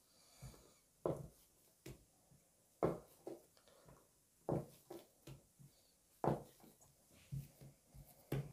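A knife cutting down through a log of soft bread dough onto a cutting board: a series of soft knocks, the loudest about every second and a half, with lighter taps between as the cut pieces are handled.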